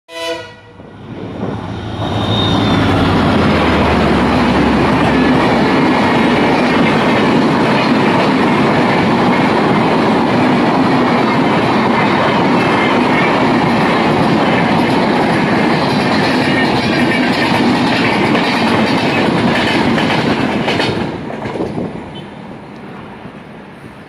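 A passenger train running past close by: a loud, steady rush of wheels on rails with some clacking, which tails off near the end. A brief locomotive horn note sounds at the very start.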